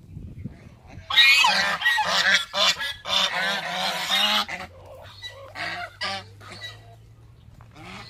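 A group of domestic geese honking loudly together, many overlapping calls for about three seconds starting about a second in, then a few fainter single honks.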